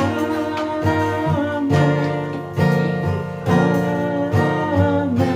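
Acoustic guitar strummed chords in an instrumental interlude of a worship song, with a new strum roughly every second.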